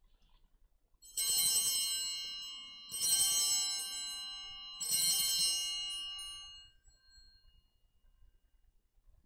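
Altar bells rung three times at the elevation of the consecrated host, each shake a cluster of bright, ringing bell tones that fade over about two seconds, the third ringing on longest.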